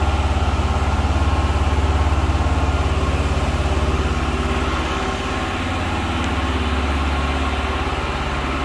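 An engine running steadily at idle: a deep, even hum that gets a little quieter about five seconds in.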